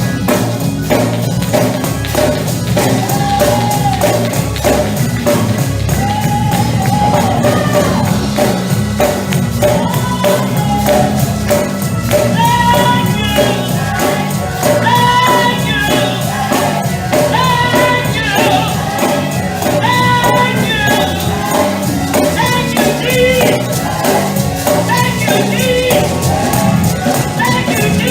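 Live gospel praise music: voices singing with a tambourine keeping a steady rhythm over band accompaniment.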